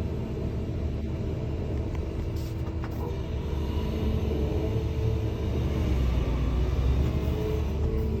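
Excavator's diesel engine running steadily with a low rumble, growing a little louder about six seconds in.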